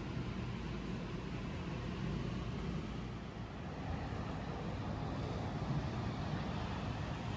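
Steady outdoor ambience: a low rumble with an even hiss over it, without distinct events.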